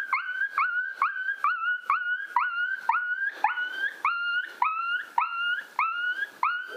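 High canine distress yelps, a coyote-style ki-yi, repeated fast and evenly at about two and a half a second, each one a sharp onset that slides up into a short held note.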